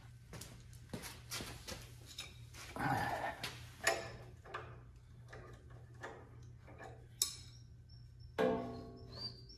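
Irregular metallic clicks and knocks of a wrench working a three-jaw gear puller on a garden tractor's PTO, then a louder ringing metal clang about eight and a half seconds in.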